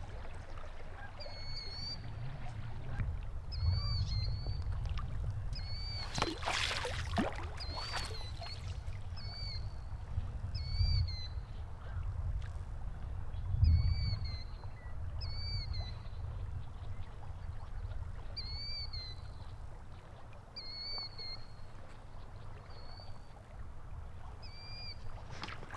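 A single bird calling over and over, the same short chirp every second or two, over a low rumbling background. There is a brief rustling noise about six to eight seconds in.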